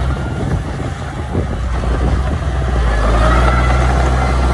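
Small crawler bulldozer's diesel engine running under load as it pushes dirt, a low rumble with a steady whine above it; it grows louder about three seconds in.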